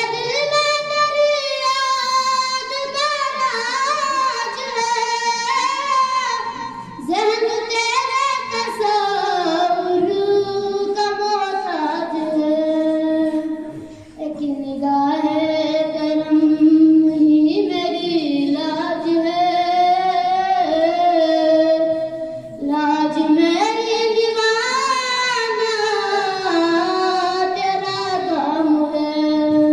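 A boy reciting a naat, an Urdu devotional poem in praise of the Prophet, sung solo in long held, ornamented phrases with brief breaks every few seconds.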